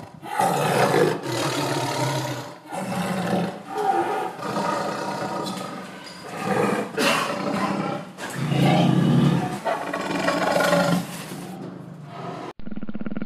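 An animal roaring again and again, each rough call lasting about a second with short breaks between. Near the end it cuts abruptly to another recording with a duller, muffled sound.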